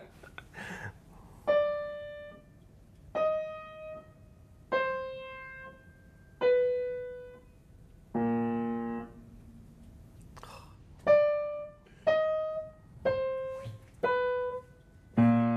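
Four single piano notes played slowly one after another, a short buzzing tone, then the same four-note sequence played back a little faster from memory, and the buzz again near the end: a note-span memory test.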